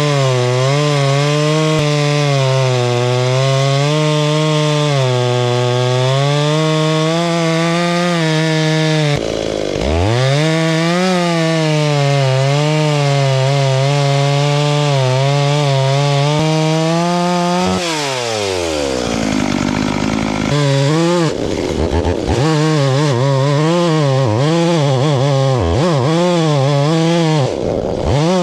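Chainsaw running at high revs under load, cutting a log lengthwise with the grain to peel off long shavings. The pitch dips briefly and recovers about a third of the way in. Past the middle the engine drops to idle for a couple of seconds, is blipped back up to full throttle, and dips once more near the end.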